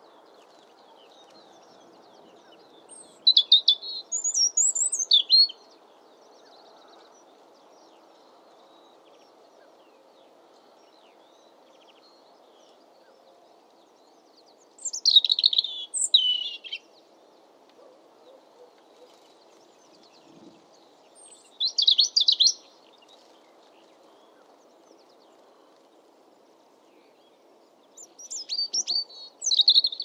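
European robin singing: four short, high, warbling song phrases separated by pauses of several seconds, the first about three seconds in and the last near the end, over a faint steady low background rumble.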